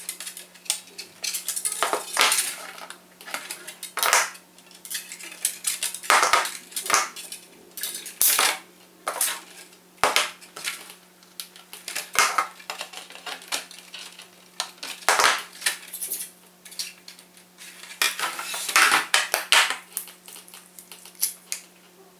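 Hands working on an RC plane's servo pushrod linkage: irregular clicks, taps and clattering of small hard plastic and metal parts, over a faint steady hum.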